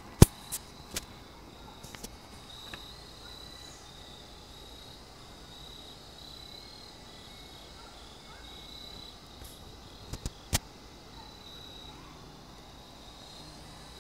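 Crickets chirping steadily in a repeating pulsed pattern. A few sharp clicks stand out near the start and again about ten seconds in.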